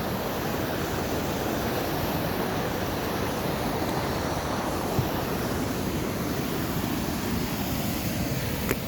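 Steady rush of river water pouring over a dam, with some wind noise on the microphone. A short click sounds near the end.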